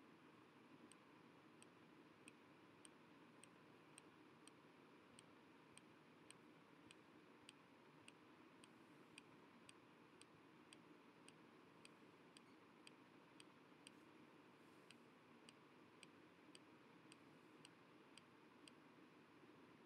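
Near silence with faint, evenly spaced ticking, a little under two ticks a second, over a soft hiss of room tone.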